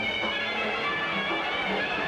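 Albanian dance music playing for a line dance, several pitched instruments at a steady, even loudness.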